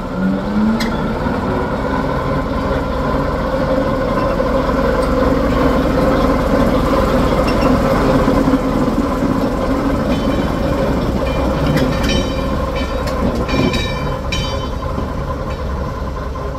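Train engine sound, rising in pitch just after the start and then running steadily. About twelve seconds in comes a run of clicks with short high squeals, like wheels over rail joints.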